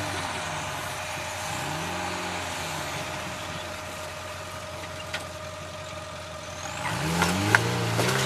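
Off-road vehicle engine working at low speed on a rough trail, easing off and revving in turns, then revving up louder about seven seconds in. A few sharp knocks sound over it.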